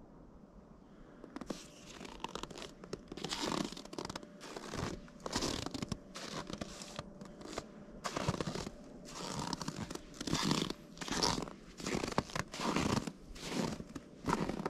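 Snow crunching in a steady run of about two crunches a second, starting a second or so in.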